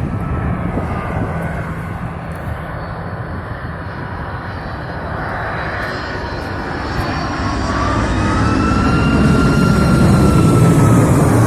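Boeing 747 jet airliner on landing approach passing low overhead. Its engines make a steady roar that swells over the last few seconds, with a high whine that glides up and then down.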